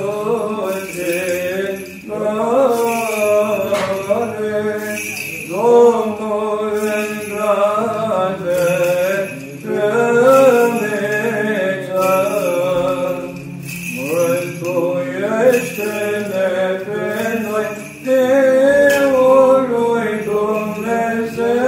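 Orthodox liturgical chant: voices sing a slow melody over a steady held drone note, with a light metallic jingling now and then.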